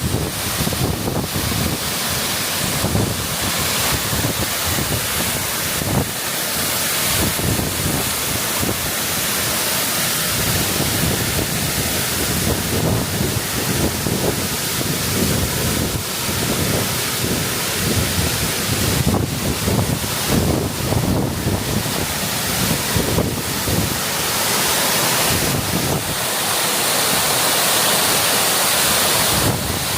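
Waterfall rushing, a continuous hiss of falling water, with wind rumbling on the microphone in gusts. Near the end the water sound grows steadier and brighter.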